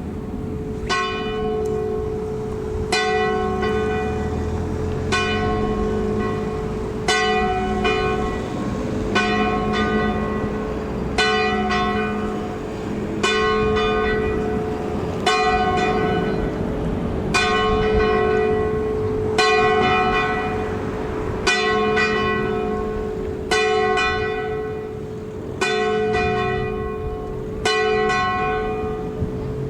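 Single church bell ringing for a Sunday service, struck about once every two seconds in an even rhythm, each stroke ringing on into the next so the bell's low hum never dies away.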